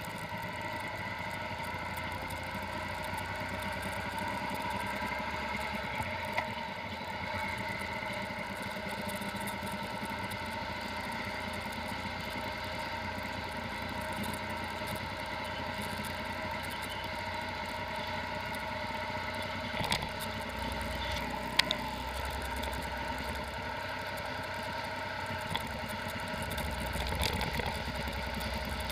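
Motorcycle engine running at a steady cruising pace, heard from the rider's machine along with road and wind noise. A few sharp clicks stand out, twice in quick succession about two thirds of the way through.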